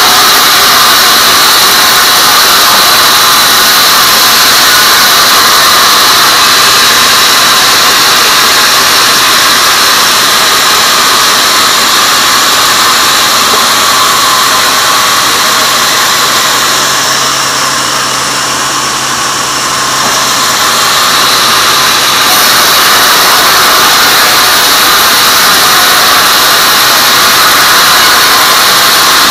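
Band sawmill running and cutting lengthwise through a teak log on its carriage, a loud, steady saw noise. The level dips briefly about two-thirds of the way through, then comes back.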